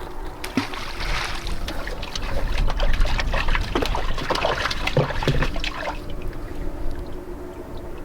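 Water splashing and trickling, busiest over the first six seconds and easing near the end, over a steady low rumble.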